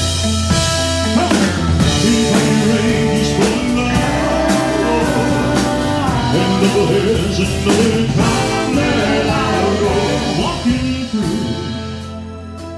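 Live rock-and-roll band playing a full, loud passage on drums, electric guitar, bass guitar, saxophone and keyboards, with repeated cymbal crashes. The music drops down softer near the end.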